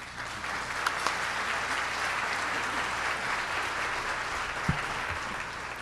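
Audience applauding steadily, starting at once and thinning out near the end.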